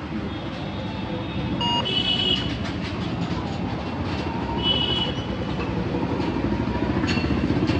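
A steady low rumble, with a few short high-pitched beeps about two and five seconds in and scattered faint clicks.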